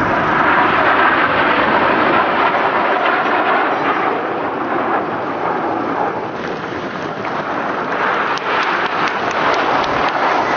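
Aircraft engine noise at an airshow: a loud, steady rush that dips a little about six seconds in.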